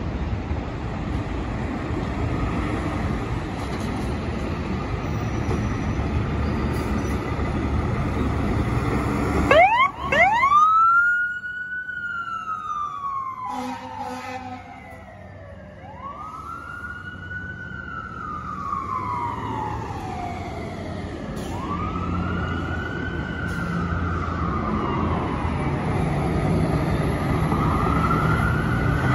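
Fire engine siren starting up about a third of the way in with a quick rise, then wailing slowly up and down about every five seconds. Before it starts there is a steady low rumble.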